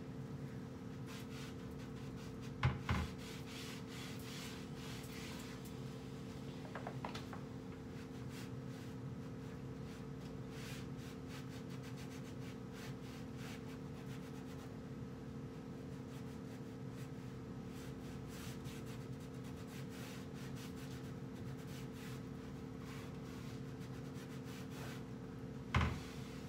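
Cleaning cloth rubbing and wiping over kitchen cabinet shelves and doors in repeated short strokes, with a knock about three seconds in and another near the end. A steady low hum runs underneath.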